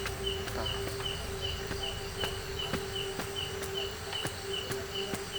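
Repeated knocks of a wooden stick digging into soil, about two a second, over a steady chirping of night insects.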